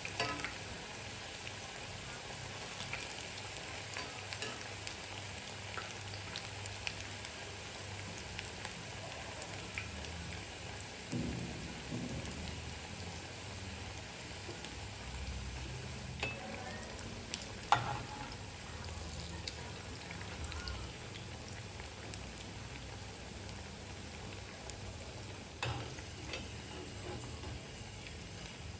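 Spinach and onion pakoras frying in hot oil in a wok, a steady sizzle. A few short clinks of a utensil against the pan come through it, the sharpest about 18 seconds in.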